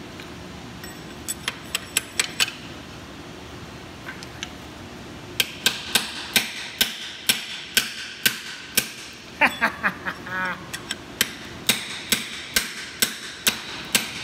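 Hammer striking a steel drift to drive a rust-stuck brake pin out of an Allis Chalmers C tractor's cast-iron axle housing, metal on metal with a short ring after each blow. A few quick taps come about a second in, then steady blows about two to three a second from about five seconds in.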